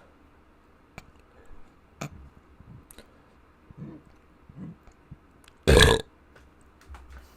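A person burping: a couple of small, low burps, then one loud, short burp about two-thirds of the way through, with a few faint clicks in between.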